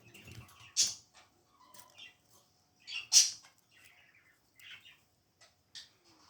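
Baby budgies chirping and squawking in short, scattered calls, with two loud, harsh squawks about a second in and about three seconds in.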